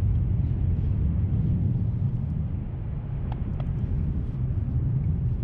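Wind buffeting the microphone: a loud, steady low rumble with no other clear sound over it.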